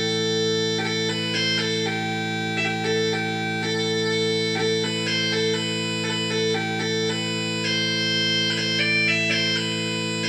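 Bagpipes playing a tune: steady drones sounding under a chanter melody with quick grace notes between the notes.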